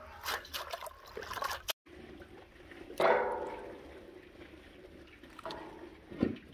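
Water splashing and dripping as leafy greens are rinsed by hand, then garlic cloves dropped into a metal basin of water with a splash, the basin ringing briefly after it. Near the end green chillies drop into the water with another splash.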